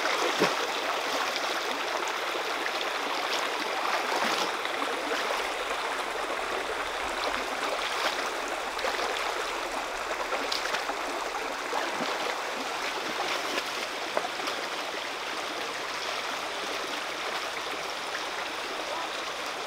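Shallow rocky stream running, a steady rush of water over stones.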